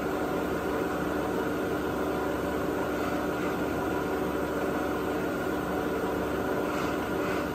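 Tree Journeyman 310 CNC vertical mill running under power: a steady mechanical hum with several steady tones from its spindle motor.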